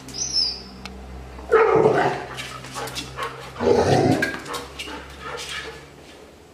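Golden retriever barking: two loud barks about two seconds apart, with a few softer ones between them.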